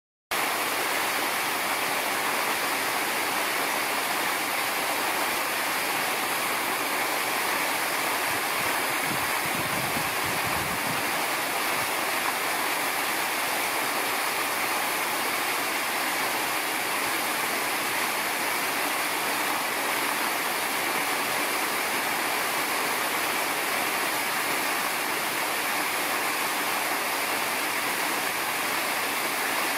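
Steady, unbroken rushing of running water, like a waterfall, with a faint low rumble about ten seconds in.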